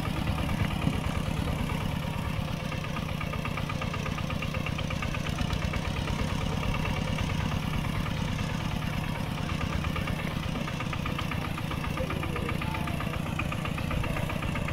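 Mini tractor engine running steadily with a fast, even chugging beat.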